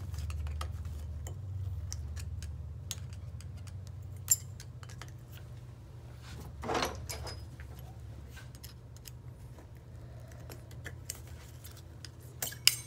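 Small metal clicks and scrapes of a pick working a snap ring out of its groove in a CVT pulley, over a steady low hum. There is a sharper click about four seconds in and a quick cluster of clicks near the end as the snap ring springs loose.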